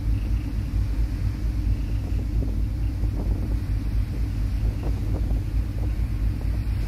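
A car ferry under way: a steady low rumble from its engines and propellers, with wind buffeting the microphone.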